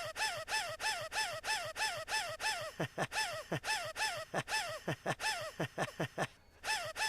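An animated character's high, squeaky wheezing gasp, one short clip repeated over and over about three times a second in a steady rhythm, with now and then a gasp that slides sharply down in pitch; there is a short break near six seconds.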